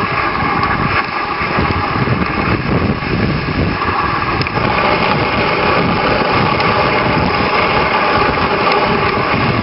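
Dog sled runners gliding over a packed snow trail behind a running team, a steady scraping hiss that holds at one level.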